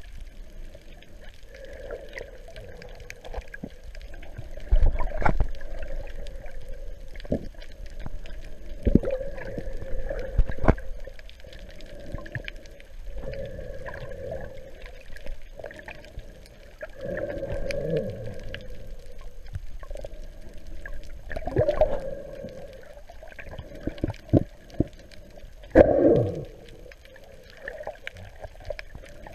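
Water heard underwater through a GoPro's waterproof housing: muffled sloshing and gurgling, broken by irregular knocks and swells every few seconds, the loudest about 26 seconds in.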